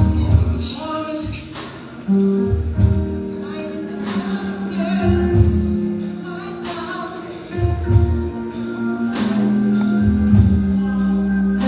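Gospel music with singing, over a steady drum beat, held low chords and tambourine.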